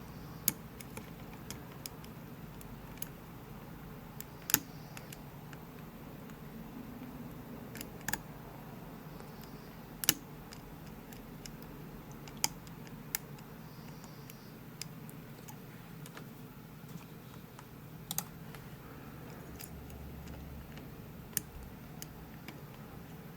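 Irregular small metallic clicks and ticks of a pick working the pins of a Winkhaus Titan euro cylinder, about a dozen of them at uneven intervals, with a faint steady hum beneath.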